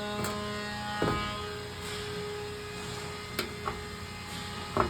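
A few light clicks and ticks as cut wires are twisted out of the push-in connector ports by hand, over a steady low hum.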